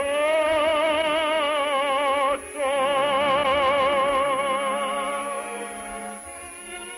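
Operatic singing with orchestra: a voice holds a long note with a wide vibrato, pauses briefly about two and a half seconds in, then holds another long note that fades away near the end.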